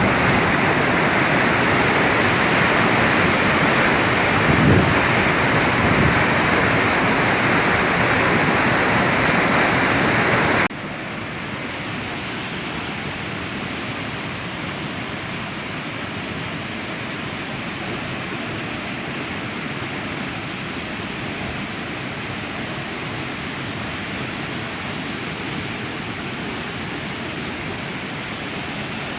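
Rushing water, a steady, even wash of noise. About ten seconds in it drops suddenly to a quieter level and carries on steadily.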